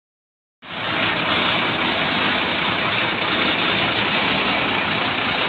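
The 7.2-litre six-cylinder OM926 diesel engine of a BharatBenz 3528C tipper truck running steadily with the tipper body raised, starting suddenly about half a second in.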